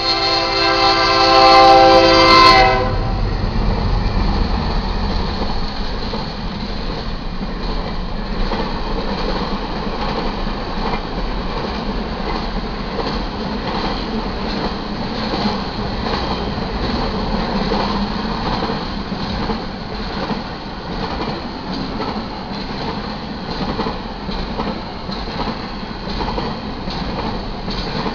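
Horn of a BNSF GE C44-9W diesel locomotive sounding a loud blast at close range, cutting off about two and a half seconds in. Then the steady rumble and clickety-clack of a double-stack intermodal freight train's cars rolling past.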